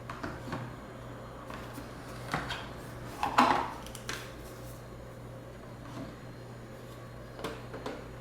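A few scattered clicks and knocks of hard objects being handled, the loudest about three and a half seconds in, over a steady low hum.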